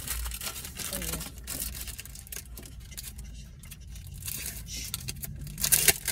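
Clear plastic cellophane sleeve crinkling and tearing as it is pulled open by hand, with papery rustling. There is a loud crackle near the end.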